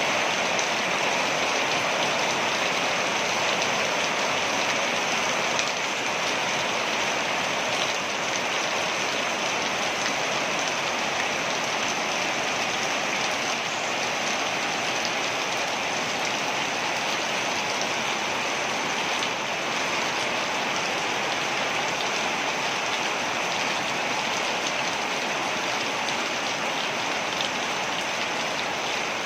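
Waterfall: a steady, unbroken rush of falling water with a bright hiss.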